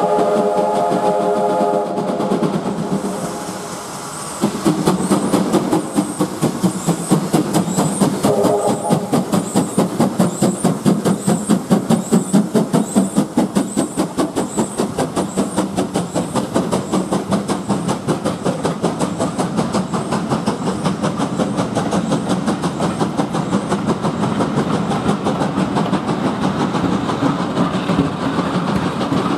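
A steam locomotive whistle sounds for the first two seconds. Then USATC S160 2-8-0 steam locomotive 6046 passes close, working with rapid even exhaust beats and giving a short whistle blast about eight seconds in. Its coaches follow, rolling past with a steady rhythmic clatter of wheels on rail joints.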